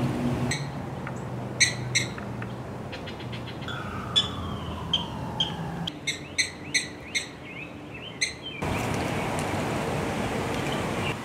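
Short, high-pitched chirps, a couple on their own and then a quick run of them, over a quiet outdoor background. About two-thirds of the way through, the background changes to a louder, steady rush of outdoor noise.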